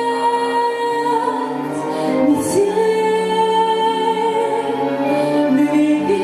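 Song with a female voice singing long held notes over musical accompaniment, the melody moving to a new note about two and a half seconds in.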